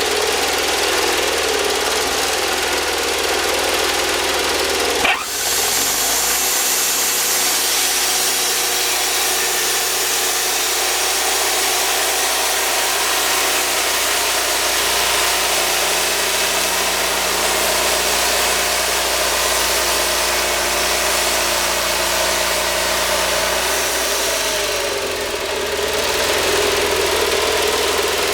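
Wood-Mizer portable band sawmill running, its engine steady. A sharp knock comes about five seconds in, and just after it the engine note changes. It changes back about twenty-five seconds in.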